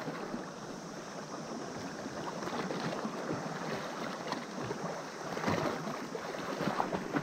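Sea surf washing against a rocky shoreline: a steady rush of water, with a few faint knocks.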